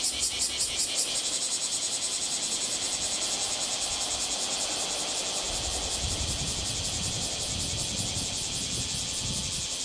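Cicadas calling in a loud chorus of rapid, even pulses, with a low rumble joining about halfway through.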